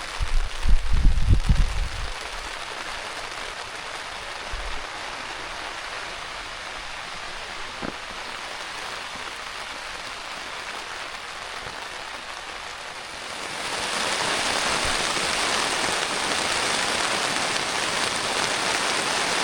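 Steady rain falling, with a low rumble in the first couple of seconds. The rain grows louder and heavier about 14 seconds in.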